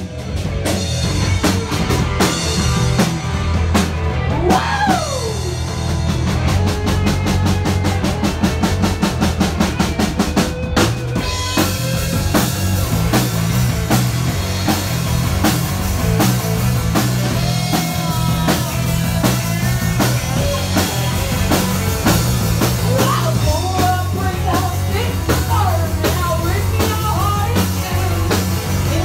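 Live rock band in full volume: the drum kit plays alone at first, with a pitch swooping up and down about four seconds in and a fast run of drum strokes, then bass and electric guitar come in with a riff about eleven seconds in.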